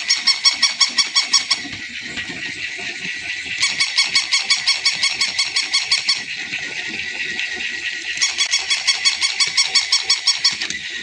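Battery-operated electronic toy sounding rapid repeated beeps, about seven a second, in three runs of about two and a half seconds each. Under them runs a steady high whine and the rattle of its motor.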